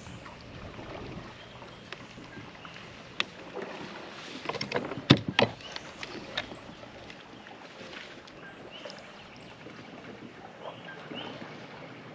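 Knocks and clatter on a kayak: a single sharp click about three seconds in, then a cluster of loud knocks around the five-second mark, over a steady low hiss of water and wind.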